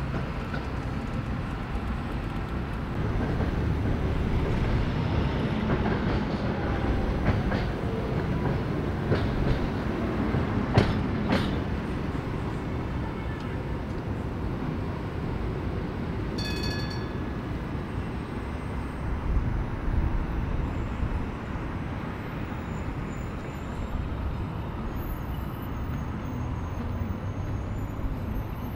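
Tram running on street track, with a run of sharp clanks and clicks from the wheels around ten seconds in, typical of wheels crossing rail joints or points. A short ringing tone about halfway through, then steadier street and tram noise.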